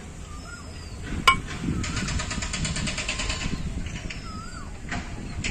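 Work on a car's front brake caliper: a sharp metal clink about a second in, then a rapid run of clicks, about ten a second, lasting over a second. Birds chirp repeatedly in the background.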